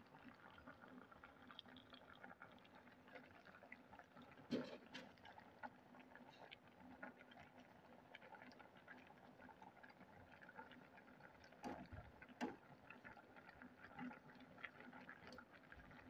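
Very faint bubbling and popping of water at a rolling boil in a steel pot of cassava, with a few soft clicks.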